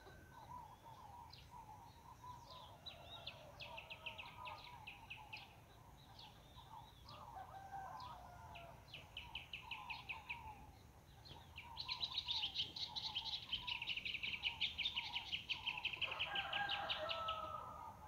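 Birds calling: repeated high, fast trills with softer chirps beneath them, and a louder, longer trill of about five seconds in the last third.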